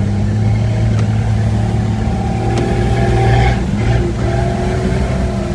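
Jeep Cherokee XJ engine running hard at steady revs while driving through deep snow, the pitch dipping briefly about two-thirds of the way through before picking up again.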